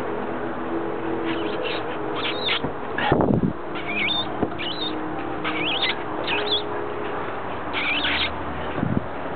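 Golden retriever puppy whimpering: a string of short, high, wavering squeaks, with a pause and then another near the end, over a steady low hum.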